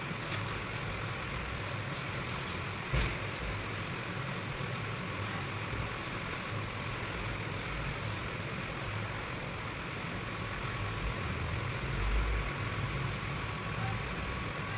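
Steady low rumbling background noise with a faint constant whine, and one short thump about three seconds in.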